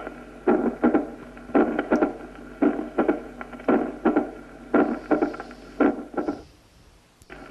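Recorded heart sounds of mitral stenosis, repeating about once a second: a presystolic murmur running into a loud first heart sound, then the second sound followed closely by the opening snap. The beats stop for about a second near the end, then start again.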